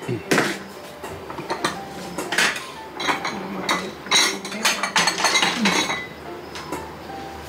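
Dishes, pots and metal utensils being handled, with irregular clinks and knocks, several of them ringing briefly.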